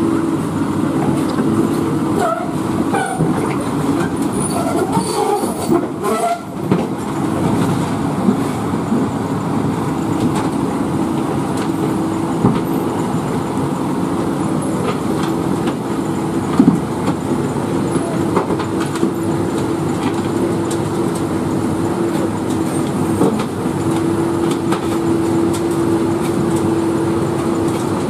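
Heavy diesel engine running steadily, with a constant droning tone and a few light clicks and knocks.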